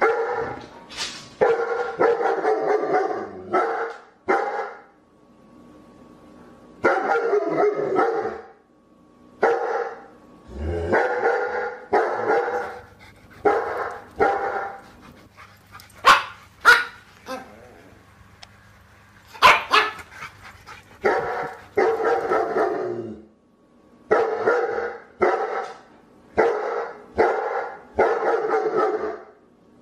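Dog barking in repeated bouts of several barks, with short pauses of a second or two between bouts.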